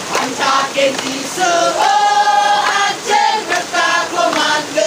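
A large group of men and women singing together as a choir, with one long held note in the middle.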